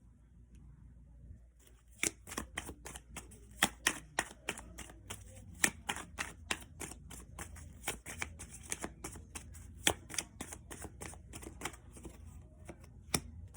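A deck of tarot cards being shuffled by hand, a rapid run of card flicks and slaps that starts about two seconds in.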